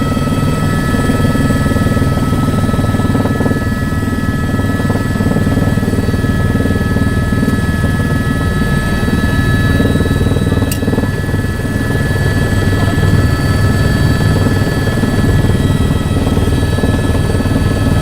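Helicopter running steadily: a heavy low rotor and engine drone with a steady high turbine whine on top. A single sharp click about eleven seconds in.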